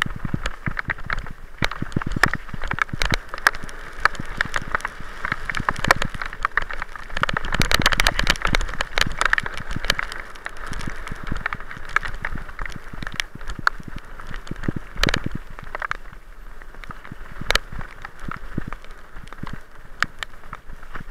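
Bicycle rolling downhill on a rough dirt and gravel forest track: a steady rush of tyre and rolling noise, full of rattles and sharp knocks as it goes over bumps.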